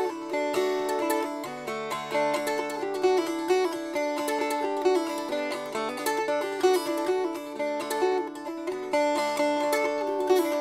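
Instrumental background music of plucked strings, a steady run of quick notes.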